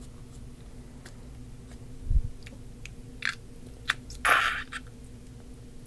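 Squishy mesh stress ball squeezed and kneaded in the hand: soft squelches and small sticky clicks, with a low bump about two seconds in and a longer, louder squelch a little past four seconds.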